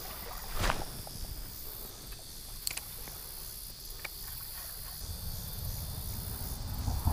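Steady, high-pitched chorus of summer insects over a low rumble, with a few short knocks, the first about a second in.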